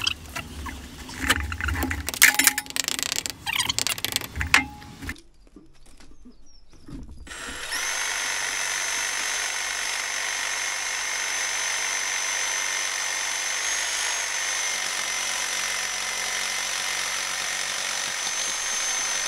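Irregular knocks and scrapes of brick and mortar being worked loose for about five seconds. After a short pause, a cordless power tool starts and runs with a steady high whine as it cuts into the brickwork.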